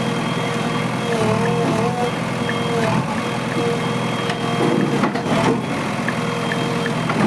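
JCB 3DX backhoe loader's diesel engine running steadily, with a sustained whine over it that wavers briefly about a second in.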